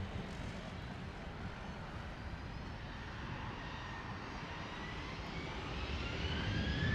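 Boeing 747-400 freighter's four jet engines running with a steady rumble. From about halfway through, a high whine rises in pitch and the sound grows louder as thrust is added.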